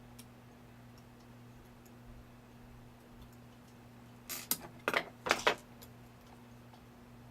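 Small sharp metallic clicks, about five in quick succession a little past halfway, with faint ticks around them: a driver pin being handled and set into a pin chamber of an American Lock 5200 padlock during reassembly.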